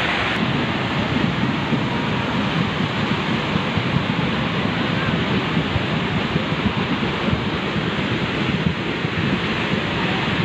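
Flash-flood torrent of muddy water rushing and churning: a steady, loud roar of water.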